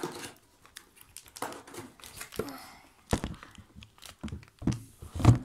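Clear plastic bag crinkling as small hands pick and pull at it, with a few knocks near the end.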